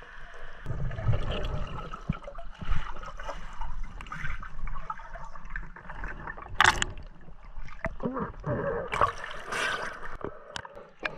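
River water sloshing and gurgling around snorkelers, with several sharp splashes, the loudest a little past halfway.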